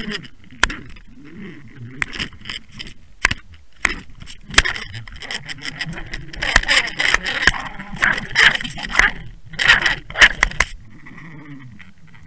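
Clatter picked up through an underwater camera's housing on a jigging rig: a rapid, irregular run of sharp clicks, knocks and scrapes from the line, jig and rig knocking against the housing, densest in the second half and easing off shortly before the end.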